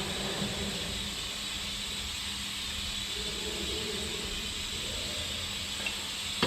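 Steady running of a backhoe loader's diesel engine at idle, an even hum with a hissing noise over it.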